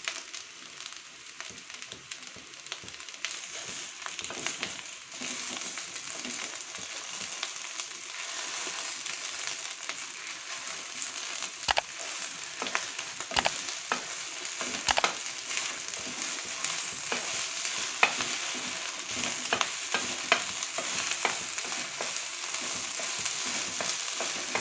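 Beaten eggs sizzling in a hot wok of fried rice while a wooden spatula scrambles them. Sharp taps of the spatula against the pan start about halfway through and come more often toward the end.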